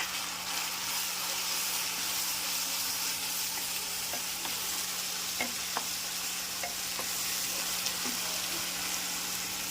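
Small pieces of boneless chicken sizzling in hot oil in a pan with ginger-garlic paste, green chillies and freshly added spices, a steady sizzle with a few faint taps of the spoon against the pan as it is stirred.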